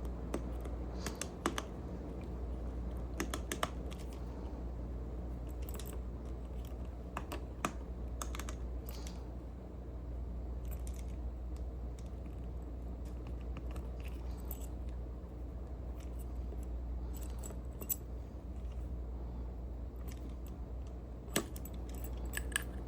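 Scattered light metallic clicks and taps of a follower tool and small lock parts being worked in the hand, as the tool presses on the lock's spring-loaded C-clip to release the core, over a steady low hum.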